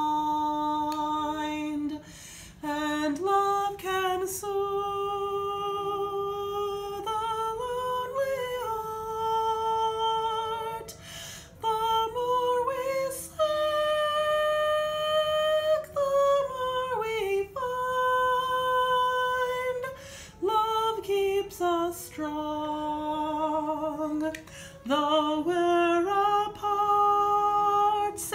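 A female voice singing a slow melody alone, in long held notes with vibrato and short breaks between phrases.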